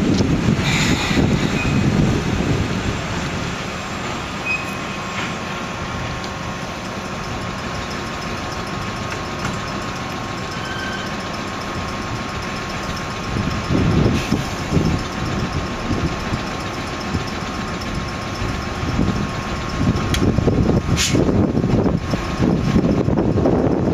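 Ohmi Railway 220-series electric railcar shunting slowly with hopper wagons: a steady whine from the railcar over a low rumble that swells and fades. A few sharp clicks come about twenty seconds in.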